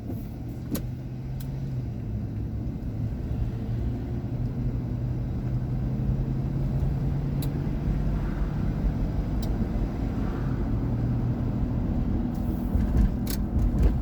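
Car engine and road noise heard from inside the cabin while driving, a steady low rumble with a few faint clicks.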